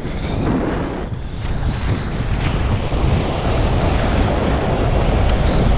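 Wind buffeting the microphone over the rush of a snow tube sliding down a packed-snow tubing lane, getting gradually louder as the ride goes on.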